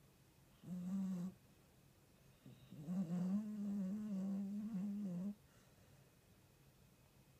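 Snoring: a short pitched snore about a second in, then a longer drawn-out one lasting about two and a half seconds.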